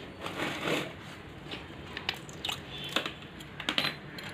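Scattered light clicks and taps of hand tools and metal engine parts being handled as a motorcycle's timing chain tensioner is unbolted and lifted out.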